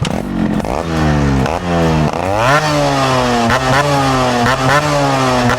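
Yamaha RXZ two-stroke single-cylinder motorcycle with an inbuilt exhaust silencer, revving up and dropping back several times. Near the middle the revs climb sharply, then the pitch slowly falls.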